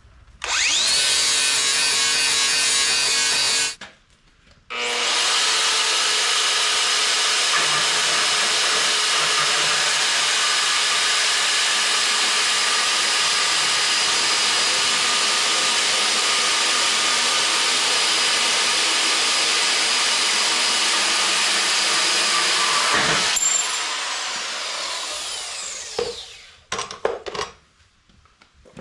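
Angle grinder grinding down welds on a steel box: a short run, a brief pause, then a long steady run of about eighteen seconds, after which it is let off and the disc spins down with a falling whine. A few short knocks follow near the end.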